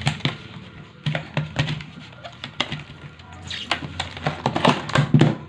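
Clear plastic blister packaging of a hex key (Allen wrench) set crackling and clicking as it is handled, in an irregular run of sharp clicks that grows denser and louder after about three and a half seconds.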